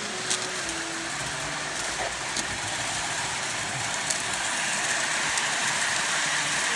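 Model train running on its layout track: a steady whirring rush from the motor and wheels, with a few sharp clicks, growing slightly louder toward the end.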